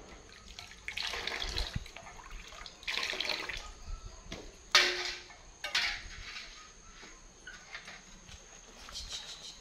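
Water splashing and sloshing in a metal basin as dishes and spoons are washed by hand, with a couple of sharp knocks of utensils against the basin about halfway through.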